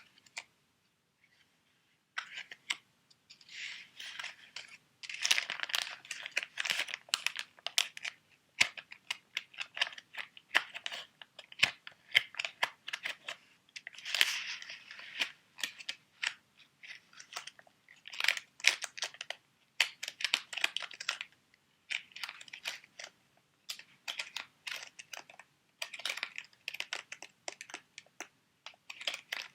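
Sheet mask packets being handled, with crinkling and quick tapping and clicking on the plastic. It starts after about two seconds of near silence.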